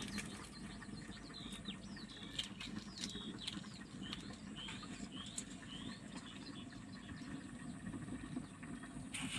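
Small birds chirping: a run of short, quick high chirps, thickest through the first half, over a steady low background rumble.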